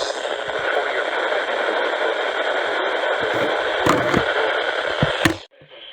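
Radio static from a weak, distant station: a steady hiss with scattered crackles and pops. It cuts off abruptly about five seconds in, giving way to a quieter, duller background.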